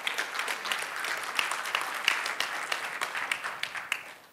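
Audience applauding: many hands clapping together, dying away just before the end.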